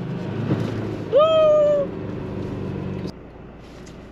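Toyota Hilux pickup running as it splashes through a muddy puddle, with a short high exclamation from someone in the cab about a second in. The engine sound drops away sharply about three seconds in.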